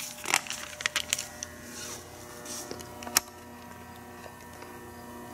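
Paper pages being turned and handled: a few short rustles and taps in the first second and another about three seconds in, over a steady low hum.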